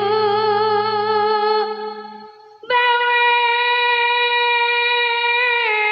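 A female sinden singing a gending into a microphone in long, wavering held notes, two phrases with a short break between them about two and a half seconds in. A low steady tone underneath fades out in the first couple of seconds.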